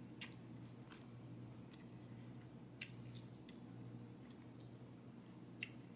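Quiet chewing of a salad of greens, berries and chicken, with a few faint sharp mouth clicks, the loudest near the end, over a low steady hum.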